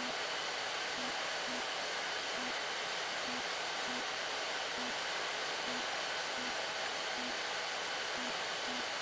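Steady, even hiss at a constant level, with no distinct knocks or clicks standing out.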